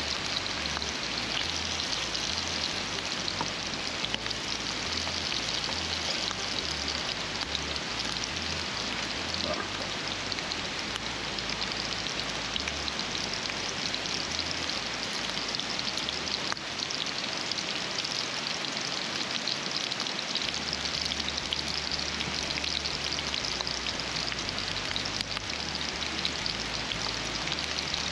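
Bratwursts and hot dogs sizzling steadily as they fry, a dense even hiss with fine crackle.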